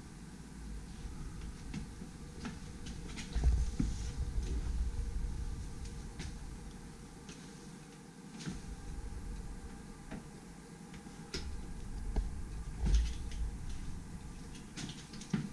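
Handling noise from a hand-held camera being carried along: a low rumble that swells twice, with scattered light knocks and clicks. No organ pipes are sounding.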